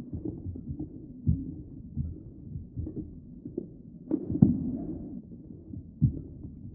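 Irregular thuds of a badminton rally: rackets striking the shuttlecock and players' feet landing on the court, roughly one a second, over a low hum. The loudest pair of hits comes about four seconds in.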